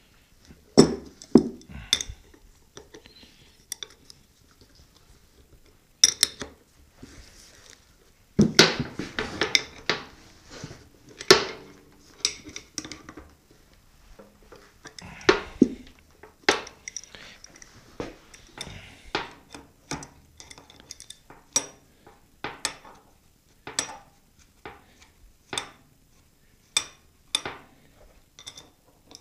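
Steel parts of a South Bend lathe's gear bracket being handled and fitted back together by hand: irregular clinks and clanks of metal on metal. The clinks are busiest and loudest about a third of the way in.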